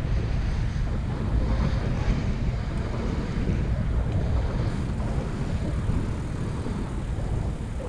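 Wind buffeting the microphone of a camera riding along on a moving bicycle: a steady low rumble with a hiss over it.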